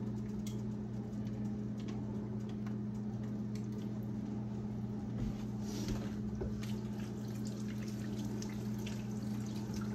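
Water running from a kitchen sink tap as hands are rinsed under it, with small clicks and splashes, over a steady low hum.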